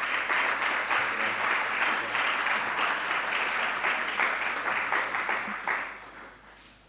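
Audience applause: many hands clapping in a dense, steady patter that dies away about six seconds in.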